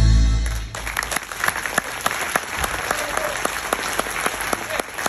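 Dance music ends on a loud, sustained final chord that stops under a second in, followed by an audience applauding steadily.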